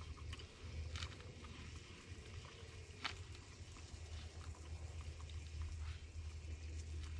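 Faint clicks and scrapes of a metal fork cutting and picking up food on a plate, with a sharper click about a second in and another about three seconds in, over a steady low rumble.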